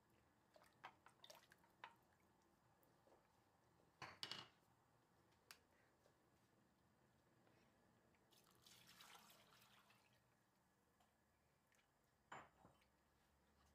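Faint kitchen sounds: drips and light knocks of utensils against the pot and bowl, with a louder knock about four seconds in. Past the middle comes a brief hiss of yogurt-and-flour mixture being poured through a mesh sieve into the pot of soup.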